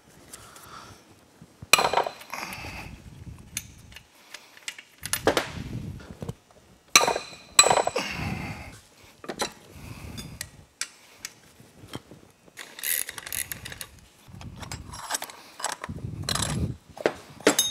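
Socket ratchet clicking in about six short runs as the motor-mount through bolts are worked loose, while a combination wrench holds the lock nut. Ringing clinks of steel tools on the metal engine case are mixed in.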